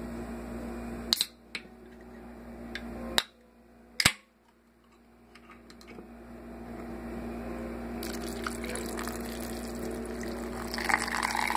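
Root beer poured in a stream into a glass mug over ice cream, splashing and fizzing, building over the last few seconds and loudest near the end. Before that, a few sharp clicks over a steady low hum.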